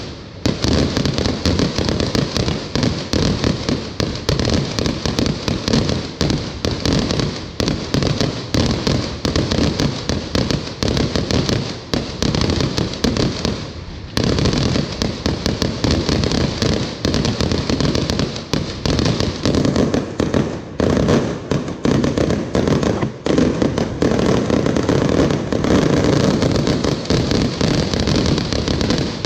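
Fireworks going off in a dense, continuous barrage of bangs and crackling, with a brief lull about fourteen seconds in.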